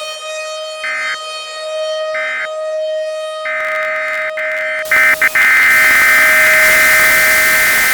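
Civil defense siren holding a steady tone after winding up, with two short higher tones early on. About five seconds in, a sudden loud harsh hiss and a piercing higher tone join in.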